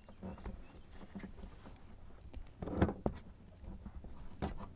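Handling noise: a flashlight moving around and knocking, with hands rustling under the floor carpet. Scattered light knocks and rustles, with a louder knock a little under three seconds in and another near the end.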